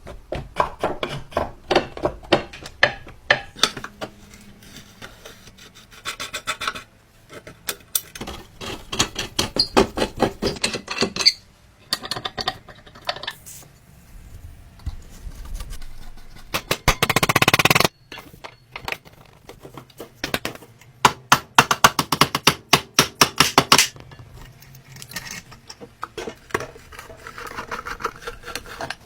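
Rapid rubbing and scraping strokes in repeated bursts, several strokes a second, with short pauses between bursts and one steadier, louder stretch of about a second just past the middle.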